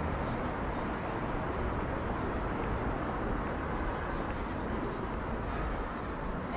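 Steady outdoor city street noise with a low rumble of traffic.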